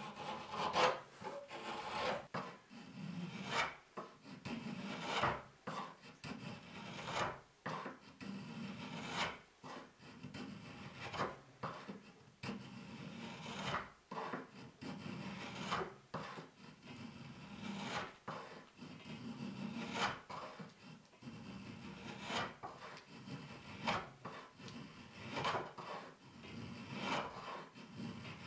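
Spokeshave shaving the curved edge of an apple-wood board, a scraping stroke about every second.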